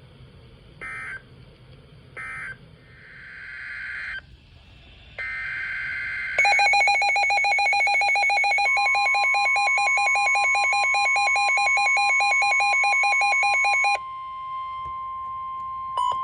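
Emergency Alert System signalling between two alerts. A short data burst is followed by two more noisy bursts, then a loud, rapidly pulsing electronic alert tone. About two seconds into the pulsing, a steady single tone joins it and keeps sounding after the pulsing stops.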